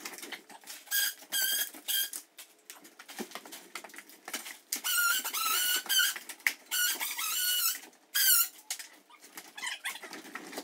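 A small animal squeaking in high, warbling calls: a few short squeaks in the first two seconds, then longer runs of squeaks from about five seconds in.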